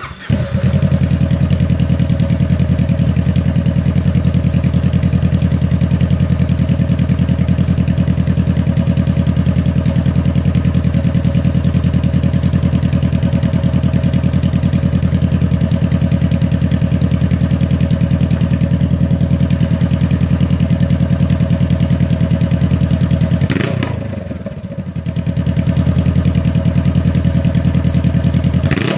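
2014 Honda CBR500R's parallel-twin engine with a straight-pipe exhaust, starting up and settling into a loud, steady idle. A quick rev of the throttle comes near the end.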